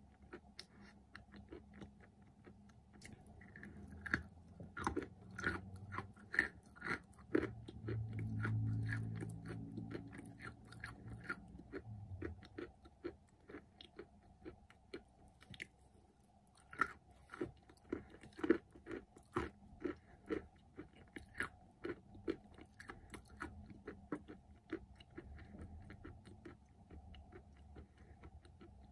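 Close-up chewing of dry, crunchy white clay coated in red clay paste: irregular crisp crunches as the pieces break between the teeth. A low drone sounds for a few seconds about a third of the way in.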